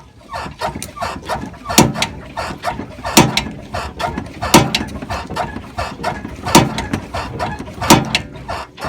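Loose front sway bar end link on a 2003 Chevy Trailblazer clunking as the truck is rocked up and down. Five very loud knocks come about every second and a half, with smaller clicks and creaks between them. The end link bolt was not tightened enough and is moving in its mount.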